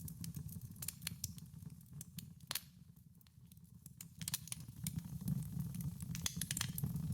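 Irregular small clicks and crackles over a steady low rumble, sparser in the middle and busier again near the end.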